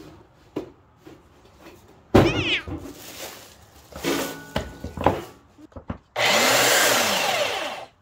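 Plastic packaging rustling as a Bauer 10-amp 4x24 belt sander is unwrapped, then the sander's motor switches on with a sudden loud, steady running noise for about a second and a half before winding down.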